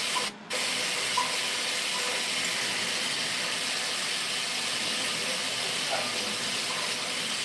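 Countertop blender running steadily, blending powdered milk with hot water and sweetener into homemade condensed milk. The sound drops out briefly about half a second in.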